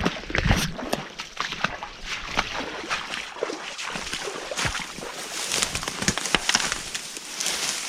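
A person wading through shallow water, the water sloshing and splashing with each step in an irregular run of strokes.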